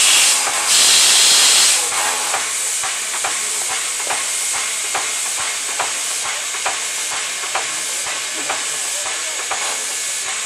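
Soviet P36 steam locomotive blowing off steam with a loud hiss that drops away about two seconds in. After that comes a softer steady hiss with short, evenly spaced beats about twice a second.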